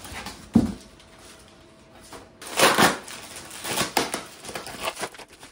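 Packing paper and plastic wrap crinkling and rustling as parts are unwrapped from a foam-lined cardboard box. There is a thump about half a second in, and the loudest crinkling comes a little past halfway.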